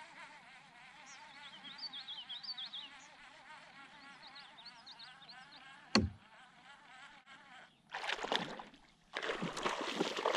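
A fly buzzing close by, with a few short high chirps, then a sharp click about six seconds in. From about eight seconds, splashing and churning water as a chain pickerel strikes a topwater lure at the surface; the splashing is the loudest sound.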